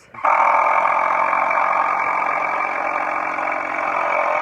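A motor running steadily at one unchanging pitch, starting suddenly and cutting off suddenly.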